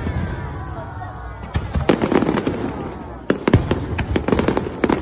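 Aerial fireworks display: shells bursting with sharp bangs, a few at first and then a rapid string of overlapping bangs from about one and a half seconds in.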